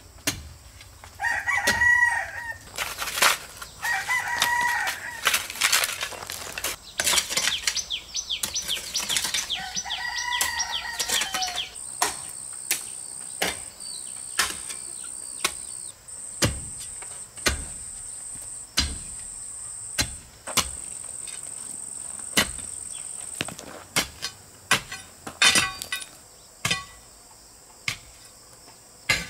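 Chickens: a rooster crowing a few times amid wing flapping and clucking. About halfway through, a high steady insect buzz takes over, broken into several stretches. Sharp knocks sound throughout.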